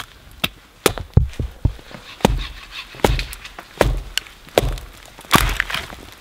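Axe chopping into a dead cedar trunk: about ten sharp, irregular knocks of the blade biting the wood. The loudest stroke comes about five seconds in, as a long piece splits away.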